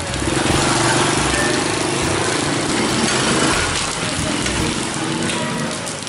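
Steady splash and hiss of water leaking from the block's water tank and falling onto wet concrete. A small engine runs over it for about the first three and a half seconds.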